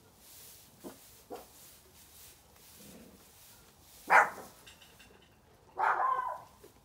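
Farm dogs barking in alarm at a fox going by: one sharp, loud bark about four seconds in, then a longer spell of barking near the end.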